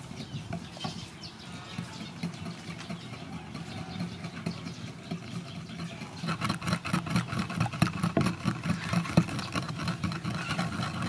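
Wooden pestle pounding and grinding chili paste in a wooden mortar: a steady run of dull thuds, growing louder and sharper from about halfway.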